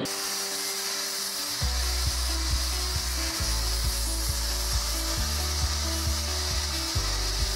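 Angle grinder with a sanding disc smoothing the edge of a forged steel blade, a steady grinding hiss. From about a second and a half in, the bass notes of background music play underneath.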